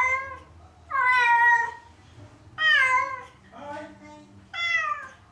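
A cat meowing loudly and repeatedly, about one drawn-out, falling call a second, with one quieter, lower call among them. The crying is from being left alone; the owners suspect separation anxiety as the stress behind the cat's cystitis.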